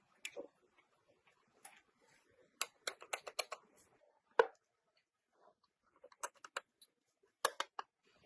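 Quick clusters of sharp clicks and taps, with one louder knock about four seconds in: small hard parts being handled and set down.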